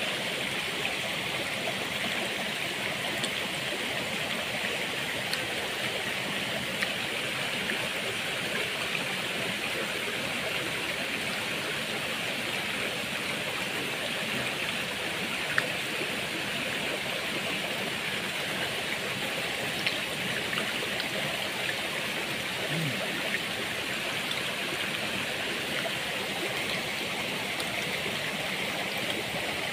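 Shallow rocky mountain stream running steadily over stones, an even rushing of water, with a few faint brief clicks on top.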